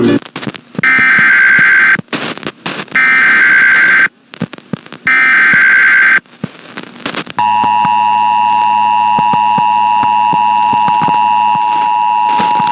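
Emergency Alert System tones: three roughly one-second bursts of SAME header data with crackly radio static between them, then the steady two-tone EAS attention signal held for about five seconds. This sequence is the start of a new alert, here a severe thunderstorm warning.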